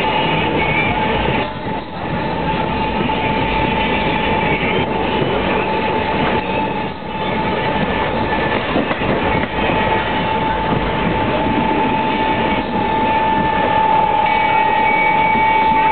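A passenger train running along the track, heard from inside a carriage: a dense, steady running noise of wheels on rails, with a steady high whine over it that grows louder near the end.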